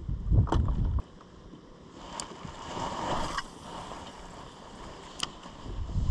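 Low rumble of wind on the microphone out on a boat, dropping away abruptly about a second in and returning near the end, with a faint hiss of open water between and three sharp clicks.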